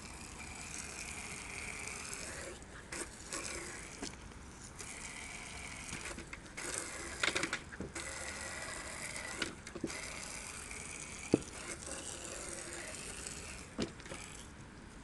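Hissing spray of a thin liquid jet hitting a surfboard, breaking off briefly several times. There are a few knocks and a sharp click about two-thirds of the way through.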